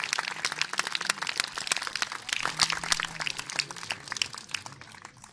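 Audience applauding: many hands clapping in a dense patter that thins out and fades near the end.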